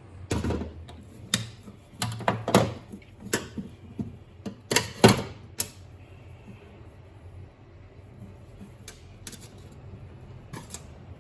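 Hand tools being handled and set down: a quick series of sharp clicks and knocks, most of them in the first six seconds, then a few scattered ones near the end.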